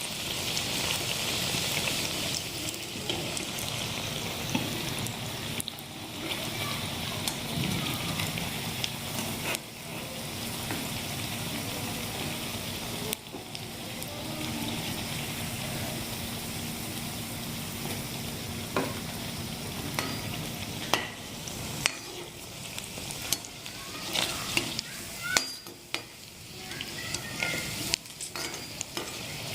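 Potato kachoris deep-frying in oil in a kadhai on low heat: a steady sizzle, with scattered clicks and scrapes of a utensil against the pan that come more often in the last several seconds.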